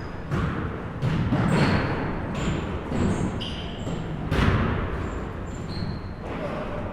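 Basketballs bouncing on a gym floor in irregular thuds, mixed with short, high sneaker squeaks from players on the court.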